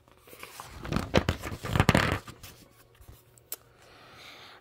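Paper rustling and sliding as a picture-book page is turned, loudest between about one and two seconds in, with a single click a little later.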